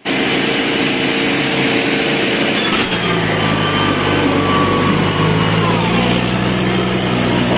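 Tractor diesel engine running steadily, heard close up. About three seconds in, after a brief click, its even low hum comes to the fore.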